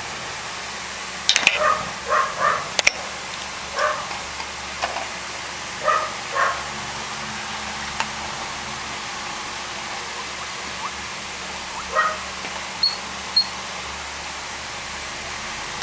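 A one-month-old puppy making short, high yips and whimpers, about a dozen of them, some in quick pairs, with long pauses between. A few sharp clicks and two brief high chirps are heard between the calls.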